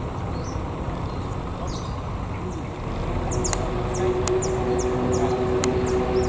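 Diesel-electric CC 201 locomotive approaching, its engine drone coming up about three seconds in and growing louder. Birds chirp over it.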